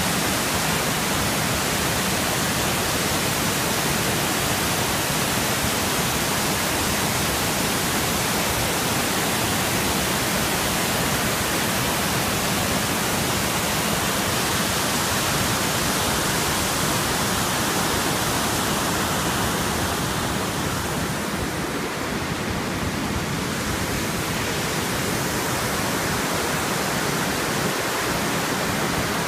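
Water pouring over a dam's spillway crest: a steady, loud rush of falling water. The highest part of the hiss softens a little about two-thirds of the way through.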